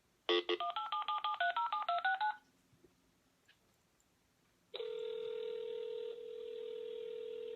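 Telephone keypad dialling a number: a quick run of about a dozen touch-tone (DTMF) beeps. After a short pause a steady ringing tone sounds on the line, which is the call connecting and ringing at the other end.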